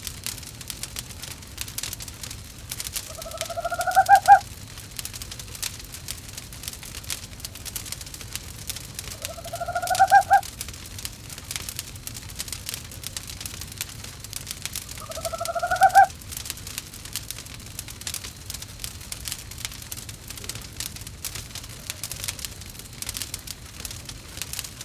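An owl calls three times, about six seconds apart. Each call rises in pitch and swells in volume for just over a second, then cuts off sharply. Under it, a wood fire crackles steadily in a fireplace.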